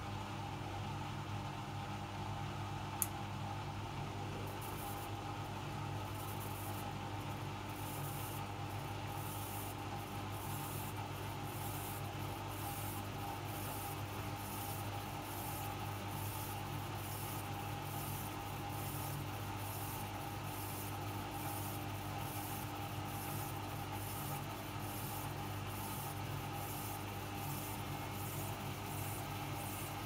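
Hoover Dynamic Next DXOA 68C3R-80 washing machine turning its empty drum on a spin-only programme: a steady motor hum, with a soft swish repeating about once a second and slowly quickening. One sharp click about three seconds in.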